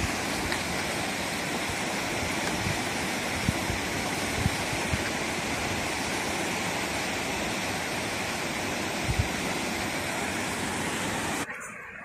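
Steady rushing of water over the rocks of a shallow, stony river, with a few faint knocks; the rush stops abruptly near the end.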